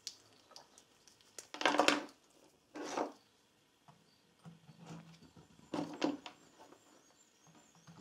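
Handling noise of multimeter test leads: the cables rustle and the probes and plugs knock and scrape as they are picked up and pushed into the meter's jacks, in a few short bursts.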